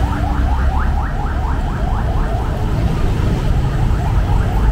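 Electronic chirping: quick rising sweeps repeating about five times a second, over the steady low rumble of street traffic.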